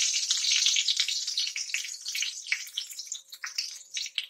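Fresh curry leaves sizzling and spluttering in hot oil with mustard seeds and cumin: a tempering being fried. The sizzle is loudest at first and dies down, with scattered crackles.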